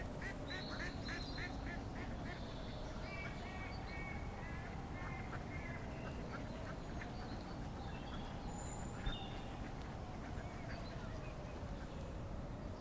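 Ducks quacking in short runs, with a faint tone slowly wavering up and down beneath them and a single click about nine seconds in.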